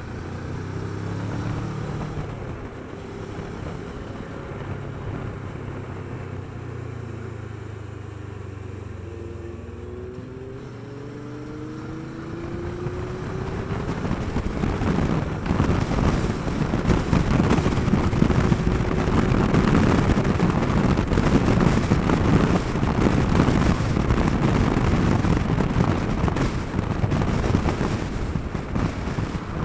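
Kawasaki Versys 650's parallel-twin engine running steadily at low speed, then revving up as the bike accelerates about halfway through. Wind rush on the bike-mounted microphone then grows loud and covers the engine.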